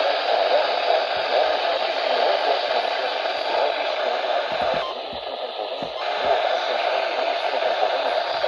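Loud hiss and static from a weather-radio receiver, an even rushing noise with no tone or clear voice, thinning briefly a little past the middle.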